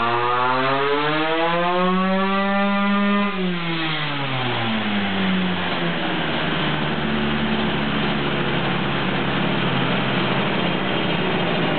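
Stock Honda CR125 single-cylinder two-stroke engine in a shifter kart on a chassis dyno, its pitch rising steadily as it revs out at the end of a dyno pull. About three seconds in the throttle closes and the revs fall away, and from about six seconds in it runs steadily at low revs.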